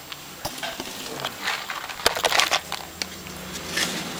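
Small metal upholstery hardware being handled: scattered clicks and light rattling as tacks and a small box of staples are picked up, with one sharp click about two seconds in.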